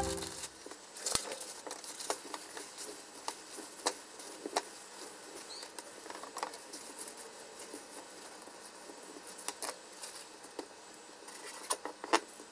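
Kitchen paper crinkling and rustling as wooden cooking chopsticks are rolled over it on a mango-wood cutting board, with scattered light clicks and taps. Near the end a kitchen knife comes down on the board with a couple of sharper clicks.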